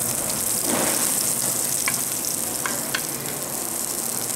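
Bluefin tuna steaks searing in a hot frying pan: a steady sizzle, with a few clicks of metal tongs against the pan about two to three seconds in.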